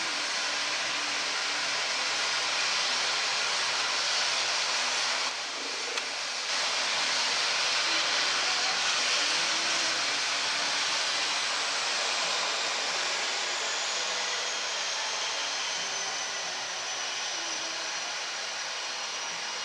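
Aircraft engine running on the apron, a steady loud rushing hiss, with a faint high whine that slowly falls in pitch over the last few seconds.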